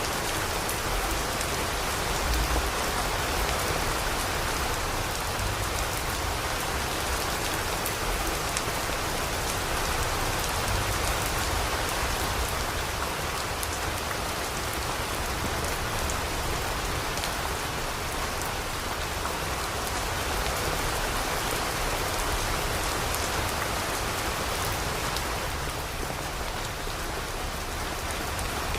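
Steady rain falling, with many fine drop ticks over an even hiss and a low rumble underneath.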